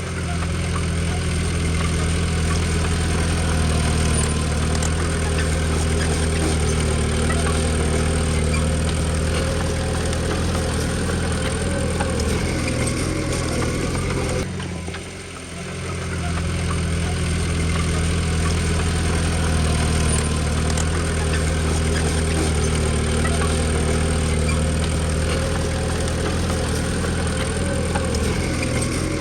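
Heavy machine's diesel engine running steadily at a low, even speed, with a brief drop in level about halfway through.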